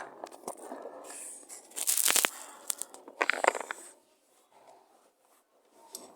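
Handling noise from a camera being moved and set in place: rustling and scraping with a few sharp clicks, two louder scrapes about two and three and a half seconds in, then it settles quiet.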